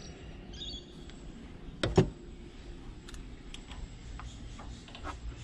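Light metallic clicks and ticks of hex keys being handled and a hex key working a throttle-body coupling clamp, with one sharp click about two seconds in.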